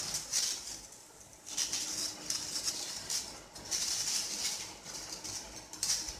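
Thin painted aluminium-can cut-outs rustling and crinkling as they are handled and laid out on a glass tabletop, in several short bursts.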